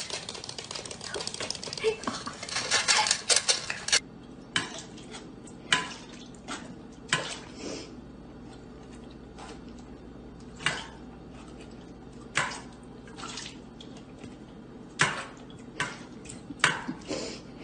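A dog eating dry kibble from a stainless steel bowl: sharp metal clinks and clanks of the bowl, about a dozen, spaced a second or two apart. For the first four seconds there is a denser run of scraping and rattling.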